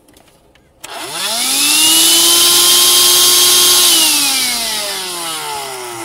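LinsnField 12V 150W handheld car vacuum cleaner switched on with a click about a second in. Its motor whine climbs quickly to speed over a loud rush of air and holds steady for about two seconds. It then falls in pitch as the motor spins down.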